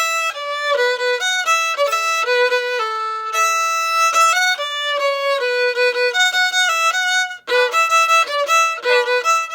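Background music: a single melody instrument playing a quick run of notes, with a brief break about seven and a half seconds in.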